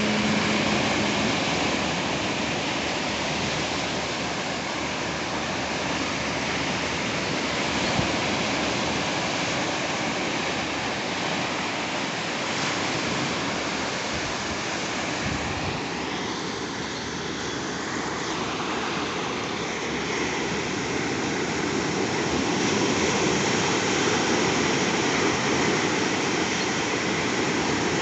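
Surf washing and breaking against rocks on the shore, a steady rush that slowly swells and eases. A held, hummed note dies away about a second in.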